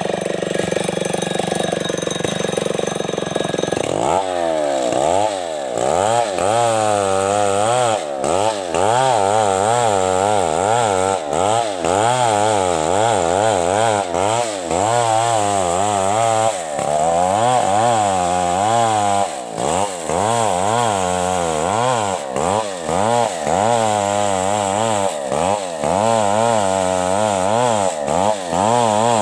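A STIHL chainsaw runs at high revs while ripping a coconut trunk lengthwise. Its note wavers constantly under the load of the cut, with a few brief dips where the throttle eases.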